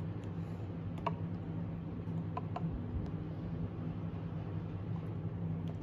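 A steady low hum with a few faint light ticks, while steamed milk is poured quietly from a pitcher into a cup.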